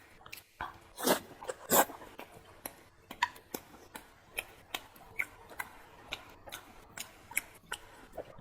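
Close-miked chewing of stewed fatty pork belly: irregular wet mouth smacks and clicks, the loudest pair about a second in.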